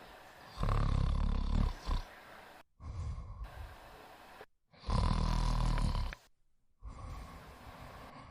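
A woman snoring: two loud snores about four seconds apart, each just over a second long, with softer breaths between and after them.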